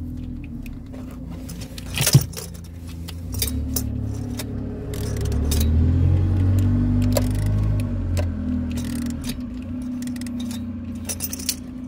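Metal hand tools clinking and rattling as a ratchet and oil filter tool are worked around an Iveco Daily's diesel engine bay, with irregular clicks and a sharp clank about two seconds in, over a low rumble.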